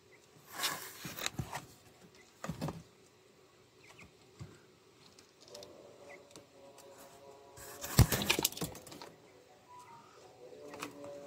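Quail moving about in a wire cage: rustling and scratching, with light clattering against the mesh. The loudest cluster comes about eight seconds in.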